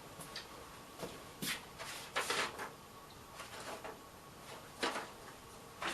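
A few scattered light clicks and knocks from handling tools or parts at the bench, over a faint steady thin whine.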